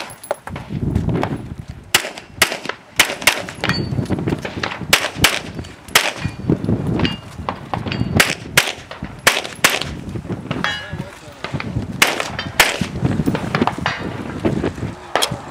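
Pistol fired in a rapid course of fire: about twenty sharp shots in quick pairs and short strings with brief pauses between them, as the shooter moves from one shooting position to the next.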